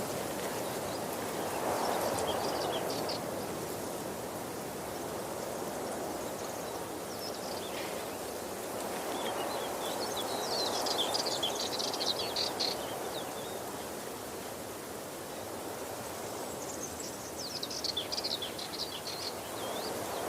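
Waterfall rushing steadily, its noise swelling and easing slowly. Birds chirp above it in short bursts, busiest about halfway through and again near the end.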